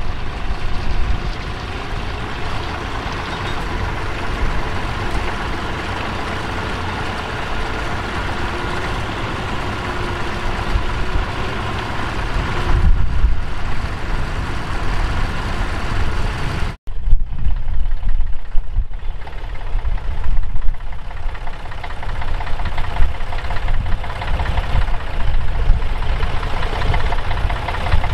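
Bukh Juno tractor's diesel engine running steadily under load as it pulls a mounted plough through stubble. About two-thirds through the sound breaks off for an instant and comes back deeper and more uneven.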